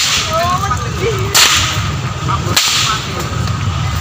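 A long whip (pecut) cracked three times, at the start, about a second and a half in and about two and a half seconds in: each a sharp, loud report.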